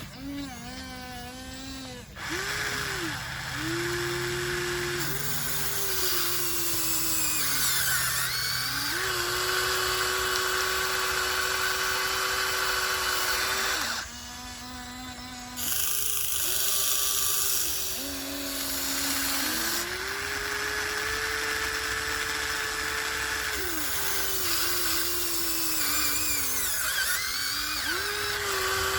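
Huina 1494 RC excavator's electric motors and gearboxes whining as the machine digs. The whine steps up and down in pitch and stops and restarts every few seconds as different functions are worked. It drops off briefly near the start and again about halfway through.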